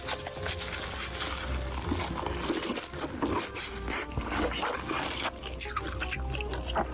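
Close-miked wet chewing and mouth smacking from someone eating a big mouthful, many quick sticky clicks, over quiet background music.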